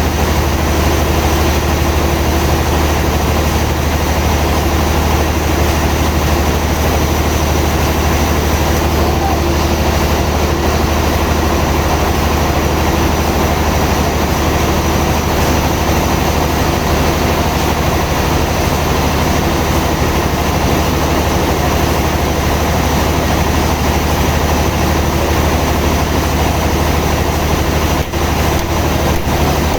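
Sawmill machinery running steadily, a constant loud drone with a deep hum.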